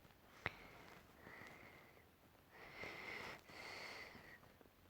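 Near silence with a few quiet sniffs and nasal breaths, and a single faint tap about half a second in.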